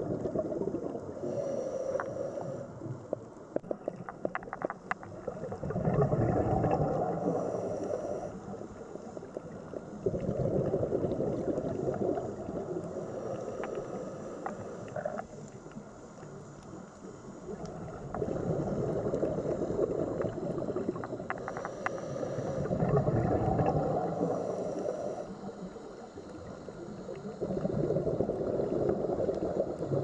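Scuba diver's regulator breathing picked up by an underwater camera: gurgling rushes of exhaled bubbles swelling and fading every four to six seconds, with scattered faint clicks.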